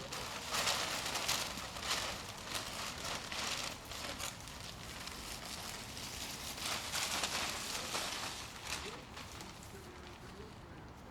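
Plastic drop cloth rustling and crackling in irregular bursts as it is wrapped up, thinning out near the end.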